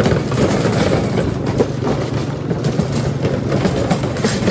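Loose wooden deck planks of a suspension bridge rattling and knocking rapidly under a motorcycle's wheels, over the steady running of its engine.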